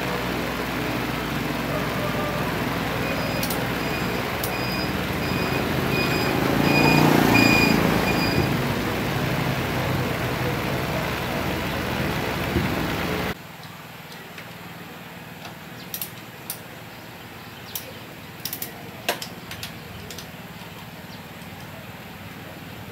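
A vehicle engine running steadily and swelling louder about seven seconds in, with a series of short, high beeps over it. About thirteen seconds in the sound cuts off abruptly to a much quieter background with a few scattered sharp clicks.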